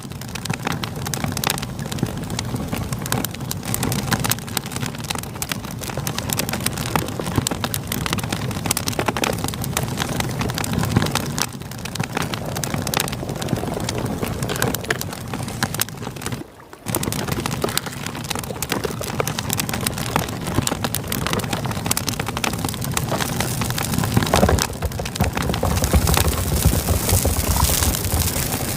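Campfire crackling over the steady rush of a river, with a momentary drop in sound about halfway through and a heavier low rumble near the end.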